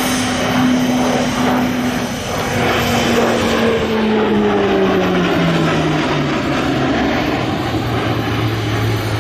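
Grumman E-2C Hawkeye's twin Allison T56 turboprops and propellers running loud as the aircraft makes a low pass overhead. The propeller hum drops steadily in pitch as it passes and pulls away, then holds low near the end.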